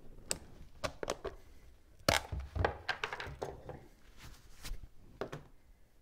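Plastic screw-top lid of a tub of lithium grease being twisted off, with scattered clicks and knocks of handling on the bench, the loudest about two seconds in.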